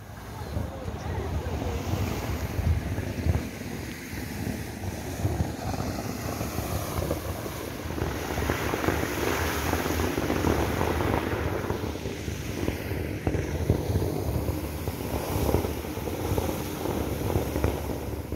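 Steady rushing hiss from a steaming hot spring vent, mixed with wind rumbling on the phone's microphone; the hiss grows louder and brighter about halfway through.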